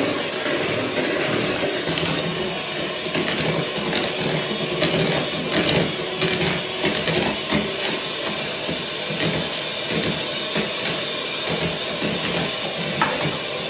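A small motor runs steadily, with many small clicks and clatters throughout.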